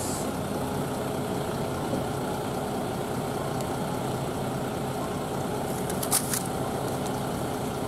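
Diesel city bus engine running steadily at a bus stop, a low even drone with a steady hum. About six seconds in there is a short, sharp high hiss.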